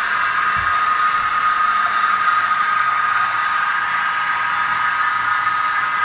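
TCS WOW DCC sound decoder playing an ALCO 251 turbocharged diesel prime mover, running steadily with the throttle open, heard through the model locomotive's small speaker.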